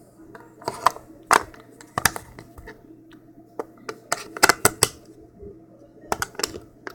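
Batteries being fitted into the plastic battery compartment of a digital door peephole viewer: scattered sharp clicks and knocks of batteries and plastic, with a quick cluster about four and a half seconds in.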